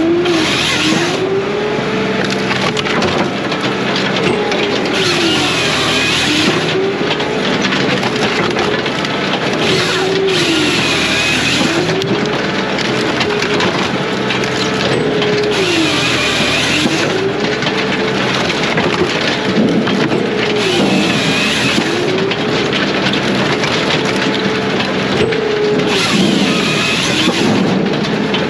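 Diesel firewood processor running under load, its 49.5 hp Kohler diesel droning steadily while its new saw chain cuts through log after log. Each cut is a loud, high-pitched rasp lasting a second or so, recurring about every five seconds, and the machine's pitch dips and recovers with each cycle.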